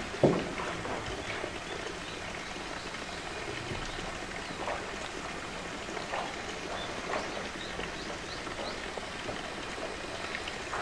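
A polar bear handling a blue plastic drum: one sharp hollow knock just after the start, then a few faint taps and scrapes of paws and teeth on the plastic. A steady rushing hiss like running water lies underneath.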